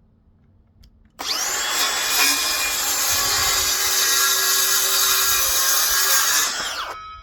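Electric circular saw starting with a rising whine about a second in, cutting through wood steadily for about five and a half seconds, then winding down.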